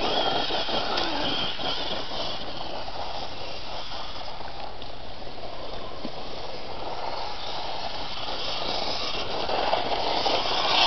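Traxxas 1/16 E-Revo VXL electric RC truck running on loose dirt: a high motor whine over the hiss of tyres throwing dirt, growing louder near the end as the truck comes closer.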